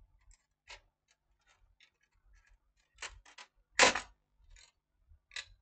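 Screwdriver prying at a DVD player's chassis and power supply board, giving scattered light clicks and scrapes of plastic and metal parts. A few sharper clicks come about three seconds in, followed by the loudest, a brief clatter, and one more click near the end.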